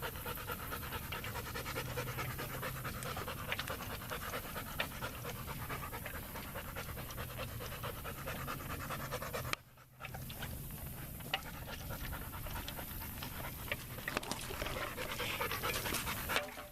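Dog panting fast and steadily, a hot dog cooling itself, with a short break about ten seconds in.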